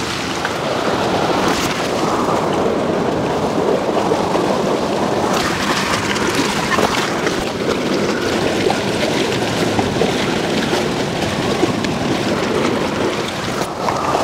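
Strong wind on the microphone, mixed with choppy lake water splashing and slapping against the dock.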